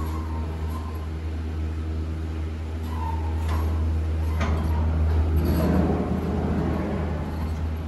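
Chairlift terminal machinery running with a steady low hum as chairs swing around the bullwheel. A few clicks come about three to four and a half seconds in, and a louder rattling rush about five to seven seconds in as a chair passes close by.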